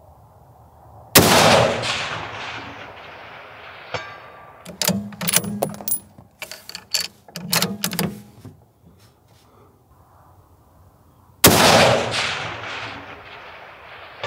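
Two rifle shots about ten seconds apart from a Bergara B-14 Wilderness Ridge bolt-action rifle in 6.5 Creedmoor, fitted with a muzzle brake. Each is a sharp crack followed by a long, slowly fading echo. Between the shots come two quick bursts of metallic clicks and clacks as the bolt is cycled.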